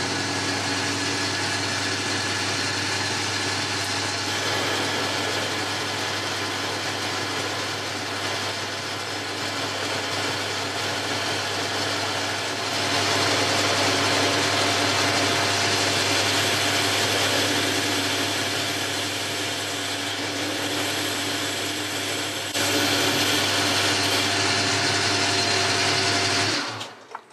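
Boxford lathe running and turning down a metal bar, with the motor and gearing humming steadily under the cutting noise. The sound steps up in loudness about halfway through and again a few seconds before it stops, near the end, when the lathe is switched off.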